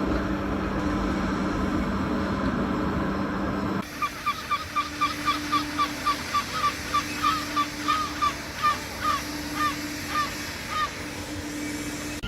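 A steady rumbling noise with a low hum, cut off abruptly about four seconds in. Then a gull calls a long series of short, sharp notes, about three a second, that space out and stop near the end.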